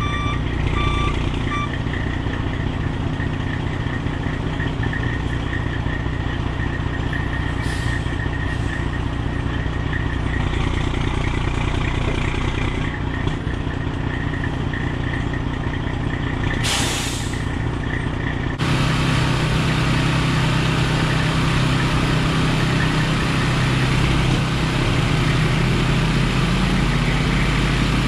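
Heavy diesel truck engine running, a straight-piped Detroit Series 60 in a Kenworth, with a reversing alarm beeping for about the first second and a half. A short hiss of air comes about 17 seconds in. Soon after, a louder, deeper engine sound sets in suddenly and holds steady.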